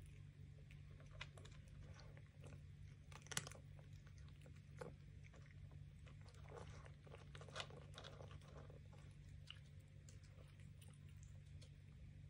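A domestic cat eating from a plastic bowl: faint, irregular chewing clicks, the sharpest about three and a half seconds in, over a steady low hum.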